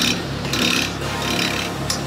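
Wood lathe running while a gouge cuts a spinning off-centre blank in multi-axis turning. The cut comes as a scraping hiss in short passes, a few within two seconds, over the steady hum of the lathe.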